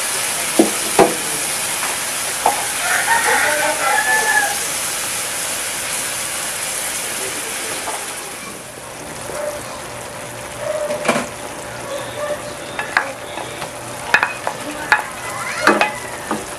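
Pork steak slices and garlic sizzling in soy-based sauce in a frying pan, the hiss easing off about eight seconds in. In the second half a spatula clicks and scrapes against the pan several times as onion rings are added and stirred.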